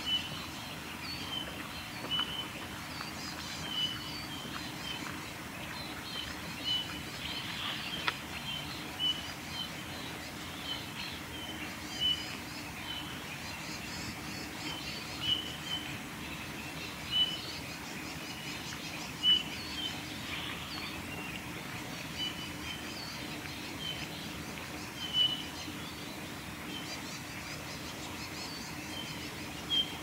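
Male Eurasian bullfinch singing: short, soft piping whistles repeated every second or so, over a faint steady low hum.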